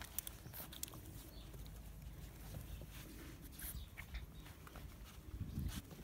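Seven-week-old puppies snuffling and mouthing at a hand, with scattered small clicks and rustles over a low rumble.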